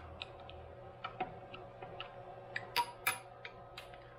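Light, irregular metallic clicks and ticks of a hand driver turning the bolts of a ball-screw bearing housing as they are tightened. A couple of sharper clicks come about three seconds in.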